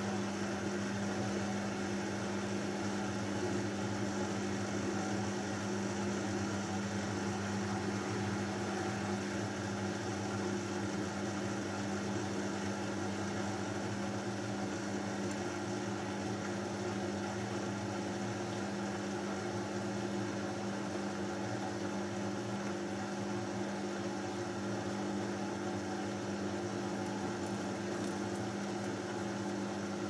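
Beko WMB81445L front-loading washing machine spinning its drum at a steady speed near the end of the main wash, with a constant motor hum.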